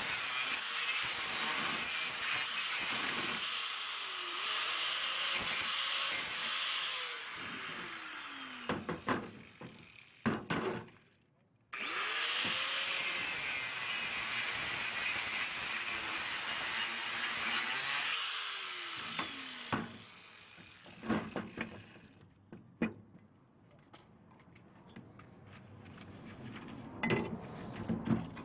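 A power tool cutting scrap metal in two long runs of about seven seconds each, its motor pitch sagging and recovering as it bites. Scattered knocks and clatters follow near the end.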